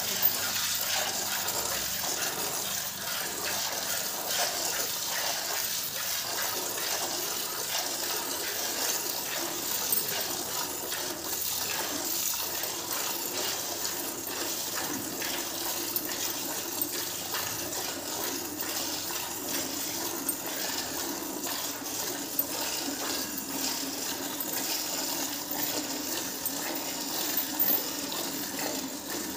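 Hand-milking: jets of milk squirted from the udder into a steel bucket, a steady liquid spattering with small metallic ticks against the pail.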